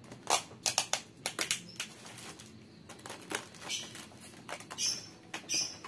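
Clear plastic parcel wrapping crinkling and crackling in irregular short bursts as it is handled while the wrapped fruit basket is finished off.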